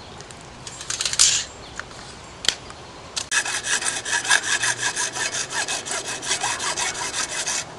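Hacksaw cutting through white PVC pipe in quick, even back-and-forth strokes, several a second, starting about three seconds in. A brief scrape comes about a second in.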